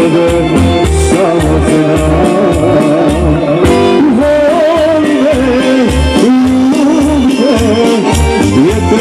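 Loud folk-style dance music with singing over a steady thumping beat, played through a loudspeaker.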